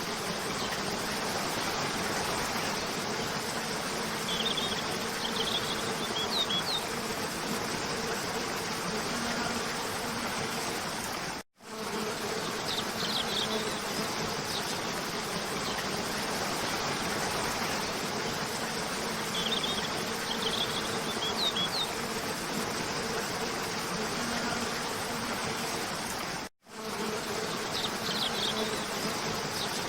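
Waterfall rushing steadily, with a steady low buzz under it and small groups of short, high bird chirps every few seconds. The sound cuts out briefly twice, near the middle and near the end.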